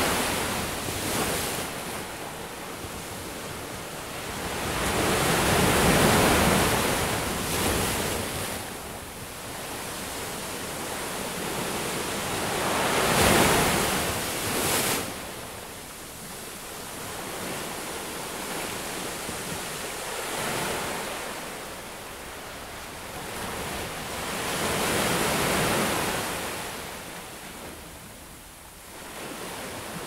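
Ocean surf breaking and washing up a beach. The rush of water swells and falls back in about five surges over half a minute, the loudest about halfway through.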